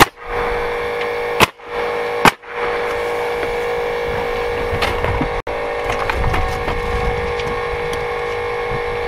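Three sharp knocks in the first two and a half seconds, over a steady mechanical hum that holds one pitch throughout.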